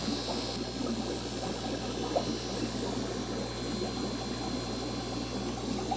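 Aquarium filtration and aeration: a steady crackling bubbling and trickling of water over a constant low electrical hum.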